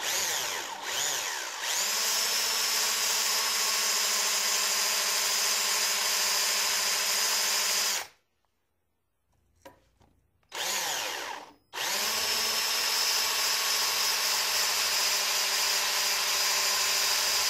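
Cordless drill with a number 8 bit drilling a centre spot into a metal adapter plate, motor whining steadily under load. It rises in pitch as the trigger is squeezed, stops about halfway, gives a short burst, then runs steadily again until near the end.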